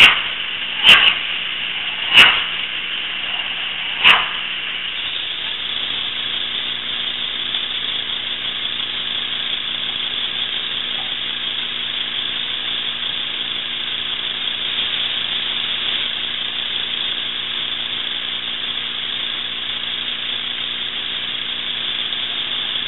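Steady hiss from a low-quality surveillance-camera microphone, with three sharp clicks in the first four seconds and a faint low hum underneath.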